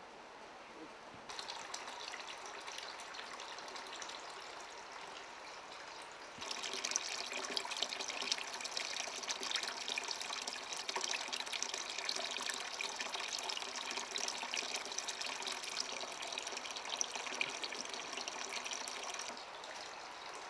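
Water from a tap running into a plastic bucket in a sink, a steady splashing pour that grows louder about six seconds in and eases off near the end.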